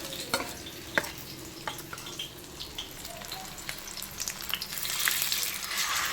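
Fish frying in hot oil: a steady sizzle with scattered crackling pops, two sharp ones about half a second and a second in, and the sizzle growing louder about five seconds in.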